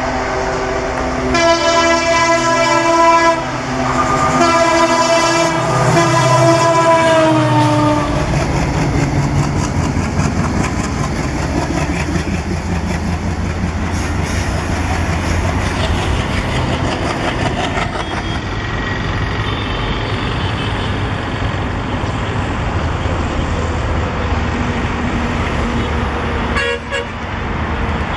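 WDM-3A diesel locomotive sounds two long horn blasts, the second sagging in pitch as it ends, then the train runs past with a steady rumble of engine and wheels on the rails.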